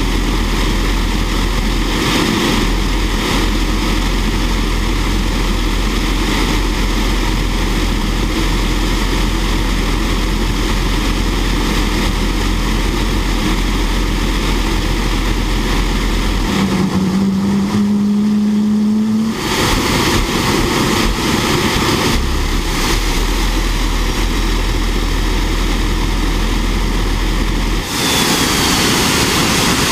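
Fairchild J44 turbojet running on a test stand: a loud, steady rushing roar. About two-thirds of the way through, the roar briefly drops away and a low hum rises slightly in pitch before the roar comes back.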